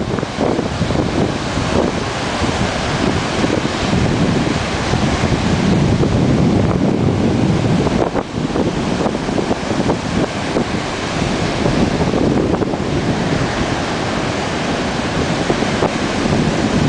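Ocean surf breaking and washing up the beach, with wind rumbling on the microphone; the level swells and dips as the waves come in.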